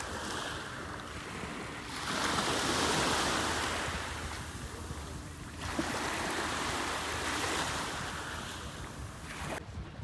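Black Sea surf washing onto the shore, swelling and fading with each wave.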